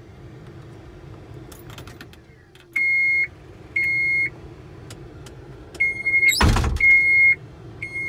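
Skid steer's electronic warning beeps as it is switched on before starting: half-second beeps at uneven spacing, from about three seconds in, with one loud clunk about six and a half seconds in, over a steady low engine hum.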